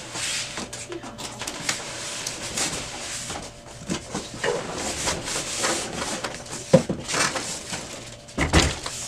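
Cardboard and plastic packaging rustling and scraping as a large printer is handled out of its box, with a couple of sharper knocks in the second half.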